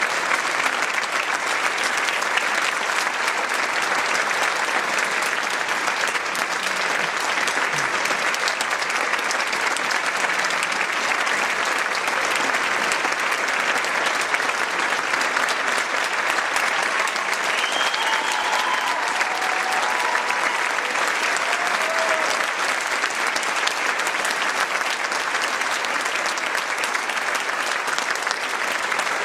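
Audience applauding steadily and densely, with a few short pitched calls from the crowd about two-thirds of the way through.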